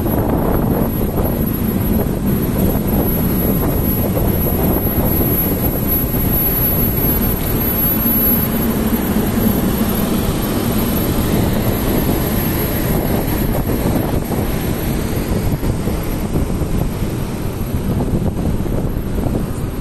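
Steady, loud mechanical rumble of a railway locomotive running while standing at a station platform, heaviest in the low range, without any clear rhythm.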